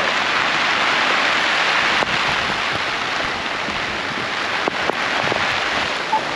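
Steady rain falling, with a few single drops ticking louder now and then.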